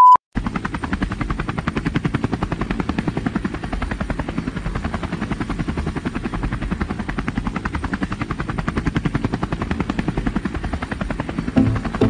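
A short beep, then a helicopter-style rotor sound effect with a rapid, even chopping pulse, standing in for the magnetic-ball drone's propellers spinning up. Music comes in near the end.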